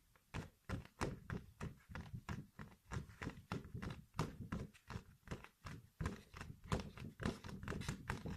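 Quick, irregular close-miked taps and clicks, roughly three to four a second, from ASMR trigger sounds being made by hand.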